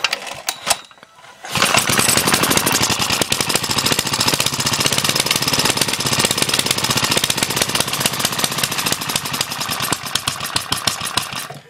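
Small Suffolk Punch engine starting after a few clicks about a second and a half in, then running fast with rapid, even firing until it cuts out at the end. Its head gasket is blown, which the owner says keeps it from idling and makes it want to backfire.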